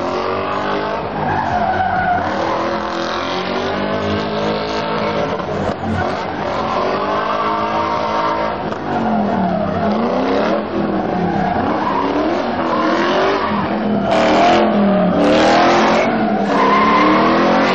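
Drift car's engine revving up and down again and again as it slides, with tyres skidding and squealing. It grows louder near the end as the car comes closer.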